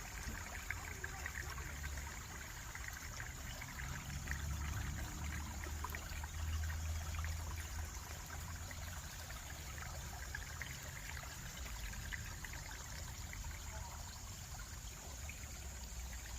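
Small forest stream trickling and splashing steadily over stones, with a low rumble underneath that swells about a third of the way in.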